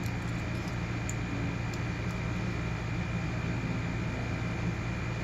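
Steady humming and hissing room noise like an air conditioner or fan running, with a few faint ticks in the first couple of seconds from a pick working the pins of a padlock.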